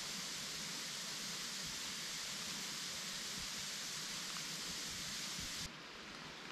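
Steady rain falling, a constant hiss. Near the end it cuts suddenly to a quieter, duller hiss.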